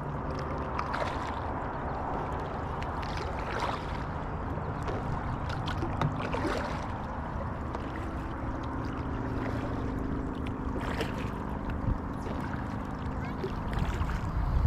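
Inflatable kayak being paddled on calm water: paddles dipping and splashing now and then over a steady wash of water along the hull.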